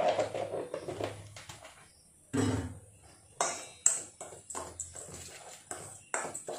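Metal spoon stirring dry flour mix in a stainless steel bowl: a series of short scrapes and clinks against the steel, coming more often in the second half.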